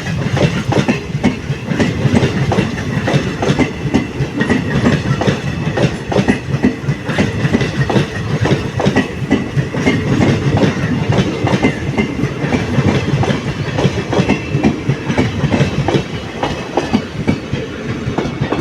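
Passenger train coaches rolling past, their wheels clattering rapidly and continuously over the rail joints (tadak tadak), fading slightly near the end.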